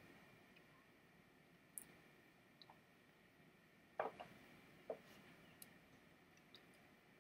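Near silence: room tone with a handful of faint, scattered clicks and taps, the loudest about four seconds in.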